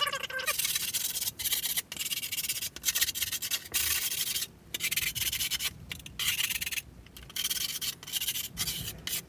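Hands rubbing and smoothing a sheet of Jessup grip tape down onto a skateboard deck: repeated scratchy strokes of the gritty surface with short pauses between them.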